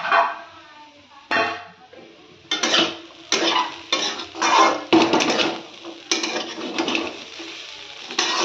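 Metal spatula scraping and stirring sliced potatoes frying in a metal kadhai, a run of short scrapes against the pan about every half second to a second, starting about a second in.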